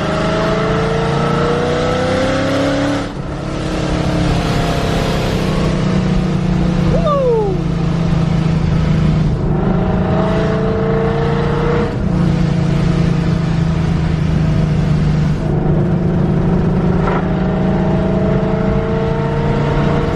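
Supercharged Ford Coyote 5.0 V8 idling and revved several times to around 3,500 RPM. A loud whoosh from the Tial Q50 blow-off valve venting boost follows the first rev, about three seconds in.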